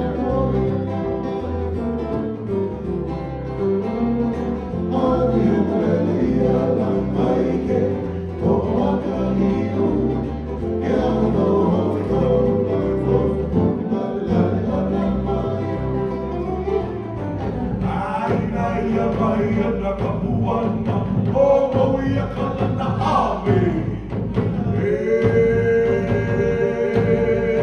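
Live Polynesian luau band music: a male singer over strummed ukulele and guitar with a steady bass line. The bass pattern drops out about two-thirds of the way through, and a new number begins near the end.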